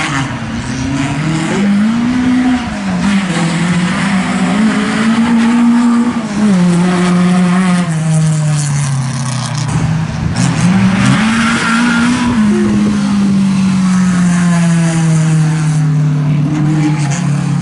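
Rally car engine revving hard on a grass stage. Its note climbs and drops sharply several times as it changes gear and lifts off for corners, then falls away slowly over the last few seconds.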